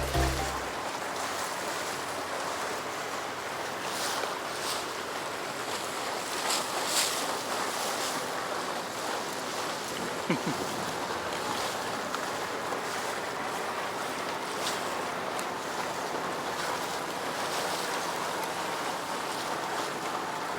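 Steady rush of wind and water around a small fishing boat, with wind buffeting the microphone and a few faint knocks.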